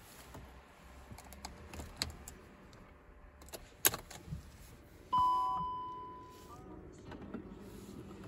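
Keys jangling and clicking as the ignition key of a BMW E38 740i is handled and turned, with a sharp click about four seconds in. About a second later the dashboard gong chimes and an electric motor hums up in pitch and then holds steady as the ignition comes on, ahead of cranking.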